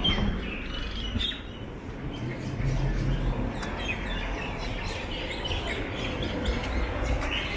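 Small birds chirping, short high notes repeated throughout, over a steady low rumble of outdoor background noise.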